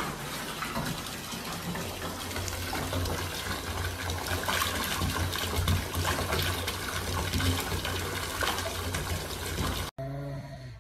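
Bathtub tap running, water pouring from the spout into the tub in a steady rush with a low hum underneath; it cuts off suddenly near the end.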